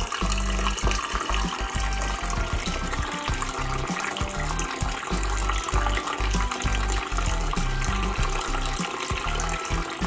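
Water trickling and splashing as it spills from small pots into the basin of a tabletop pot fountain, under background music with a steady bass line.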